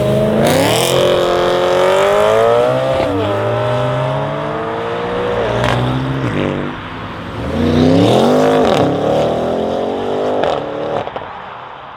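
Audi RS6 C8's twin-turbo V8, with catless downpipes and an OPF-delete exhaust, accelerating hard. The revs climb, drop sharply at a gear change and climb again. The car lifts off with sharp exhaust pops, then makes a second hard pull, with another pop near the end.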